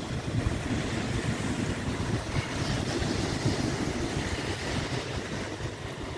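Surf breaking and washing onto a sandy beach, with wind buffeting the microphone in a low, uneven rumble. The hiss of the surf swells in the middle.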